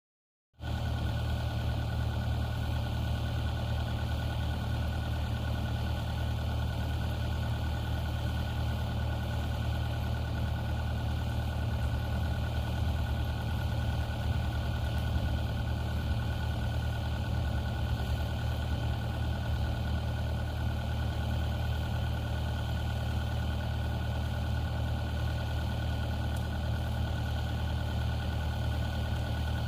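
New Holland C232 skid steer's diesel engine running steadily at a constant speed, with a steady high whine above the drone. The sound starts abruptly about half a second in.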